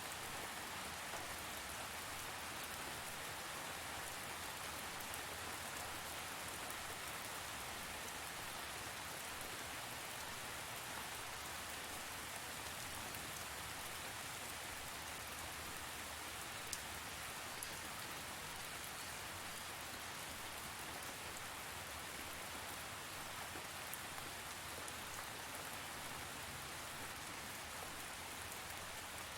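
Steady rain falling, an even hiss with small scattered droplet ticks, with no thunder.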